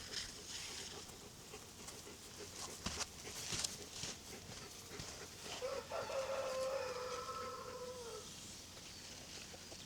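A rooster crowing once, a single long call of about two and a half seconds that starts about halfway in and drops in pitch at the end.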